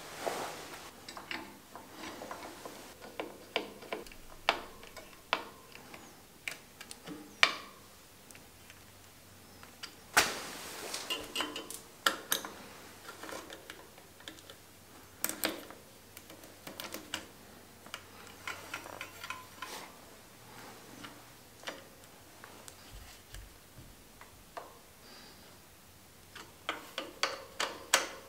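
Irregular clicks and light metallic ticks from a bicycle's mechanical disc brake caliper being adjusted on the front wheel, ending in a quick run of clicks as the caliper's red pad-adjustment knob is turned by thumb.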